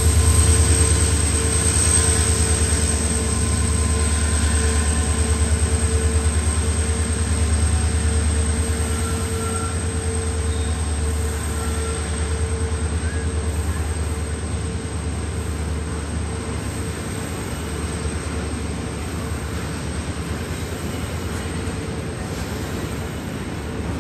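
A long diesel-hauled freight train of tank wagons passing, with a low engine rumble and wheels rolling on the rails. The rumble is loudest at the start and fades gradually as the diesel locomotive draws away.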